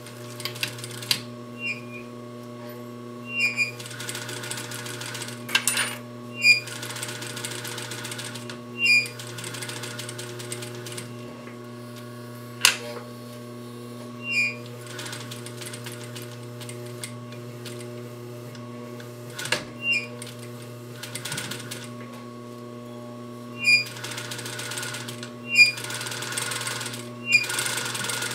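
Industrial sewing machine with a welt foot stitching a pillow seam through thick layers of fabric and twist cord trim. It sews in about ten short runs of a second or two, with pauses between them, over a steady motor hum. There is one sharp click about halfway through.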